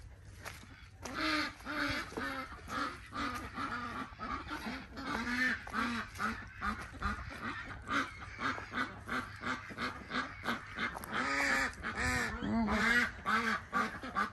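A flock of domestic waterfowl calling without a break, starting about a second in: many short pitched calls, several a second, overlapping.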